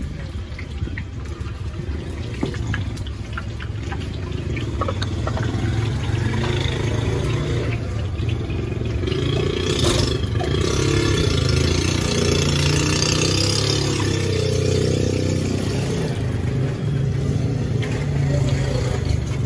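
An engine running steadily, growing louder through the middle stretch and easing off again.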